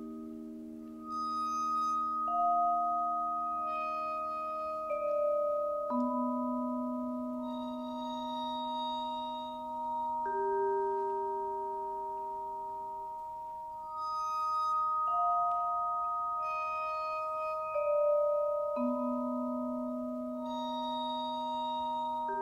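Vibraphone played slowly with yarn mallets: metal bars ringing in long, sustained notes of several seconds each, overlapping into soft chords, with a new note entering every second or few.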